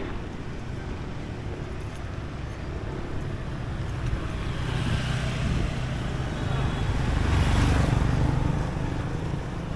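Street traffic of motorbike engines running nearby, a steady drone that swells louder about seven to eight seconds in, as if one rides close by.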